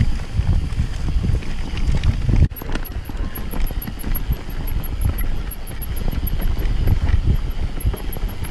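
Wind buffeting the microphone over the rumble and rattle of a mountain bike rolling fast downhill on a dirt and grass singletrack, with a sudden brief drop about two and a half seconds in.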